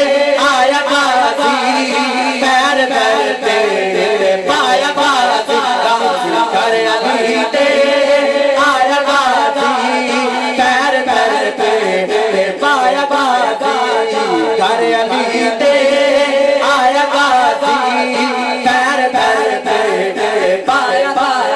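A man singing a naat into a microphone over a PA system, in long, wavering melodic lines without clear words.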